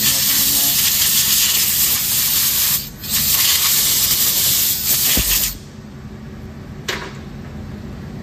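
Compressed-air blow gun blasting metal chips out of a bandsaw's blade slot, in two long hissing blasts that stop about five and a half seconds in. A single short click follows near the end.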